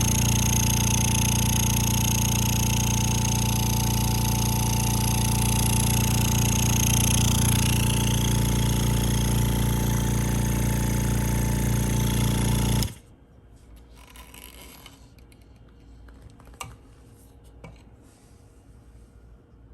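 Rocker 300 oil-free vacuum pump running with a steady motor hum, then switched off about 13 seconds in, stopping abruptly; a couple of faint clicks follow.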